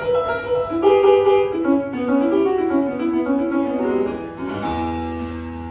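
Instrumental music with a piano playing a stepping melody; a low sustained note joins underneath near the end.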